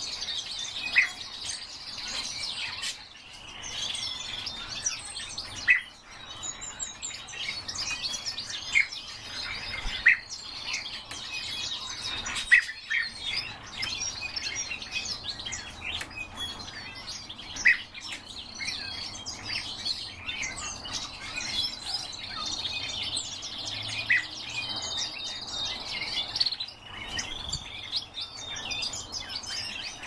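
European bee-eaters calling: steady overlapping twittering, with a louder single call every few seconds.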